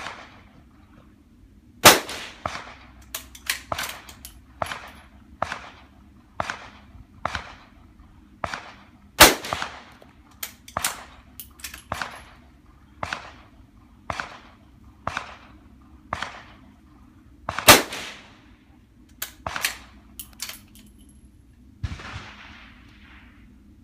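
Rifle shots on a shooting range from .22 rimfire rifles, including a Sako Quad Range: a run of sharp cracks about one a second, with three much louder shots about eight seconds apart.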